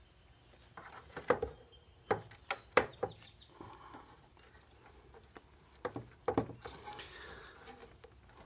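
Hands working on a router's circuit board and its wiring: a series of sharp clicks and knocks, about six, with light rustling between them.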